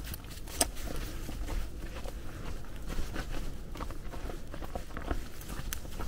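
Footsteps on snow: a string of irregular crackles and ticks, the sharpest click about half a second in.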